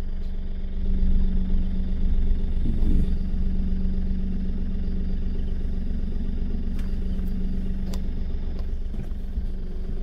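Four-wheel-drive safari jeep driving, its engine running with a steady hum over low road rumble, and a few faint clicks near the end.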